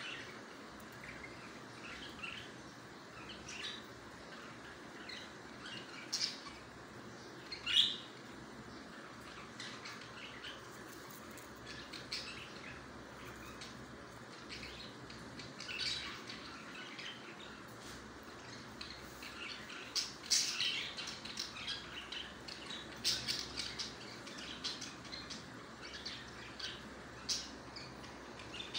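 Parakeet chicks calling in short, scattered chirps and squawks, with a single loud call about eight seconds in and a busier run of calls a little past two-thirds of the way through.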